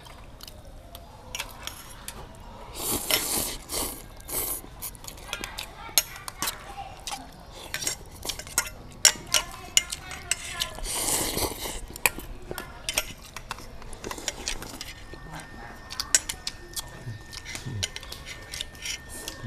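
Metal chopsticks and a spoon clinking against stainless-steel bowls while noodle soup is served and eaten: many short, sharp clinks. Twice, about three seconds in and again about eleven seconds in, there is a longer burst of about a second that sounds like noodles being slurped.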